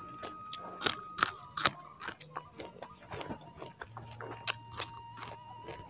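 Close-miked chewing of bakso: irregular wet mouth clicks and smacks, several a second.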